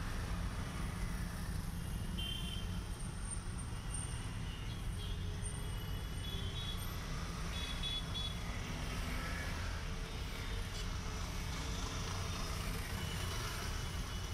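Steady low rumble of background road traffic, with a few faint short high tones now and then.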